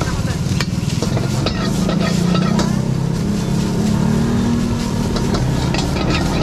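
Steel ladle scraping and clanking against a wok as egg fried rice is stir-fried, with a light sizzle, over a steady low rumble from the gas wok burner.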